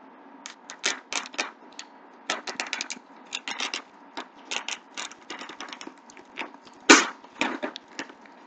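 Hands picking and tearing at the packing tape and cardboard flaps of a shipping box: an irregular run of short crackling clicks and snaps, the sharpest about seven seconds in.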